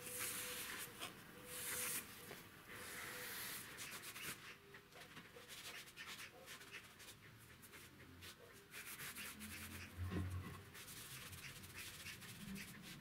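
Foam sponge rubbing liquid finish onto a wooden board in repeated wiping strokes.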